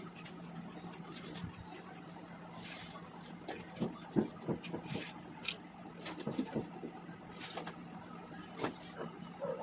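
A steady low hum with irregular light clicks and knocks from about three and a half seconds in.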